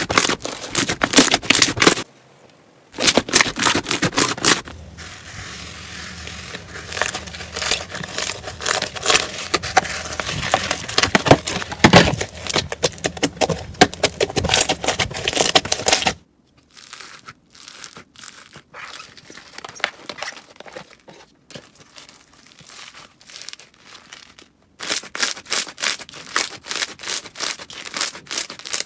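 Hands squeezing, poking and stretching slime: dense crackling and popping clicks, with brief breaks between clips and a quieter stretch in the middle. Near the end the crackling grows louder again as green slime packed with foam beads is squeezed.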